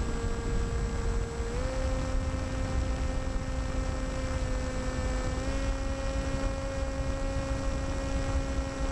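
Electric brushless outrunner motor and propeller of a Skywalker FPV plane running in flight: a steady whine whose pitch rises slightly twice as the throttle is nudged up, over low wind rumble on the onboard microphone.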